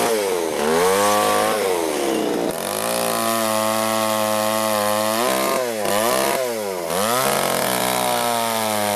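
Chainsaw running and cutting into a wooden block, its engine note dipping and climbing in pitch several times as the throttle is eased and squeezed. This is the rough shaping of a carved head.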